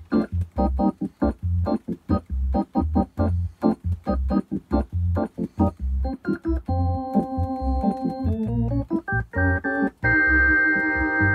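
Hammond B3 organ sound from a Ferrofish B4000+ module, played from a Hohner MIDI accordion through a Roland Cube Street amplifier: a bossa nova with short, clipped chords over a bass line. Partway through it changes to held chords, and about ten seconds in a fuller sustained chord comes in.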